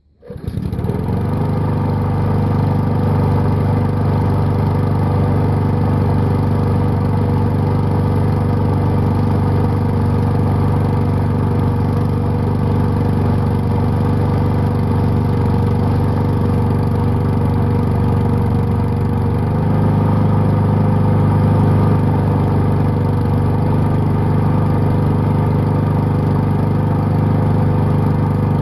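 Honda GCV160 lawnmower's single-cylinder four-stroke engine catching on a cold start after two years unused, then running steadily. About two-thirds of the way through its pitch shifts slightly and it gets a little louder.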